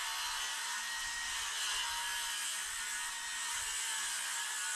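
A power tool running steadily with a high whir, used on the wooden nesting-box boards.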